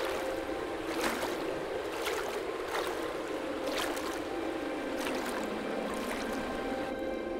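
Dye liquid sloshing and splashing as a stick stirs tied cloth bundles in a metal vat, with a swish about once a second over a steady drone.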